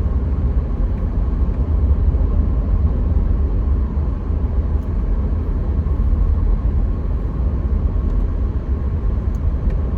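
Steady low road and engine rumble of a car being driven.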